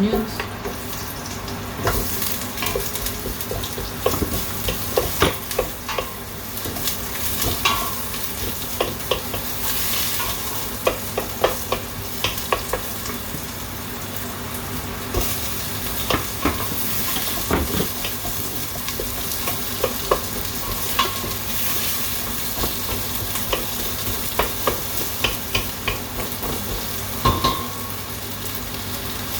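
Onions frying in hot pork fat, sizzling steadily from about two seconds in, while a utensil stirs them with frequent knocks and scrapes against the pan.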